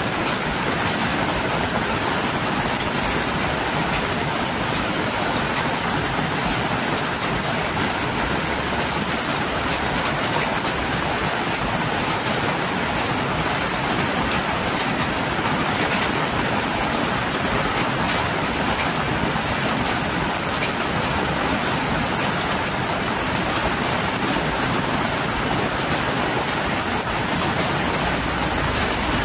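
Heavy rain falling steadily, with water streaming off the roof edge onto plants and the ground below, making a dense, even hiss with many small drips and splashes.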